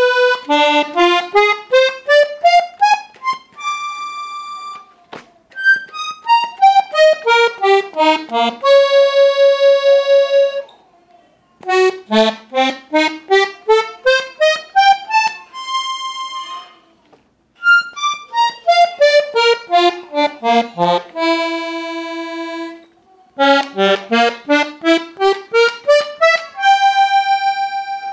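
Parrot accordion tuned in F playing scales: quick runs of single notes that go up, then down, in turn, each run ending on a held note, five runs in all with short pauses between. The seller says it has no air leaks or damaged reeds.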